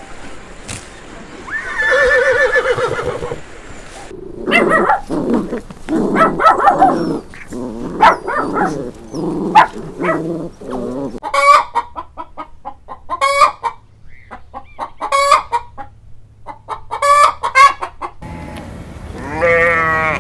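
Chickens clucking, first in a busy cluster of short calls and then in separate sharper calls repeated every second or so. Just before them the end of a horse's whinny is heard, and near the end a sheep bleats once.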